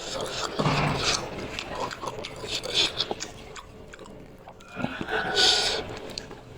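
Close-miked chewing of spicy instant noodles, with irregular small wet clicks from the mouth and a louder hissing burst about five seconds in.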